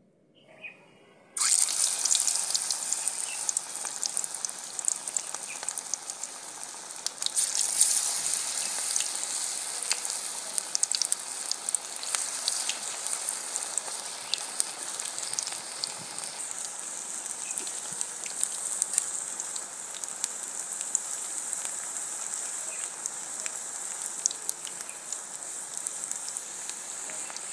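Onion pakoras in gram-flour batter dropped into hot oil in a kadhai: a sudden burst of sizzling about a second and a half in, then steady crackling and sizzling of deep-frying, which swells again around eight seconds in.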